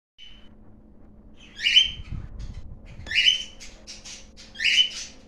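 A bird giving short, harsh squawking calls, three of them about a second and a half apart.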